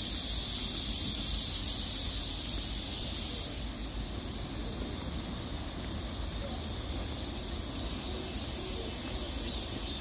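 Steady high-pitched chorus of insects chirring in the grass, dropping to a lower level about three and a half seconds in.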